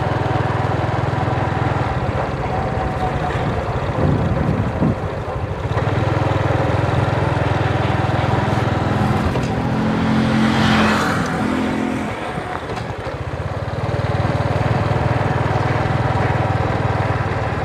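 Motorbike engine running steadily while riding along a road. Around the middle the engine note rises for a couple of seconds and a rushing noise swells and fades.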